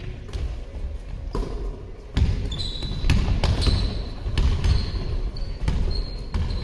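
A basketball bouncing on an indoor court floor, with repeated sharp thuds, running footsteps and, from about two and a half seconds in, a string of short high-pitched sneaker squeaks.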